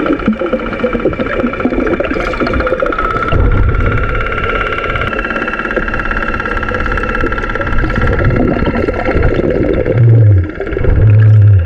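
Steady motor hum and whine heard through water, over a rough low rumble, with loud low rushing bursts near the end.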